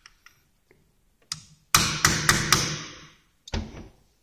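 A metal wrench knocking against a wheel rim mounted on a tyre balancer: four sharp, quick metallic strikes, each ringing out and fading over about a second. A duller heavy thump follows near the end.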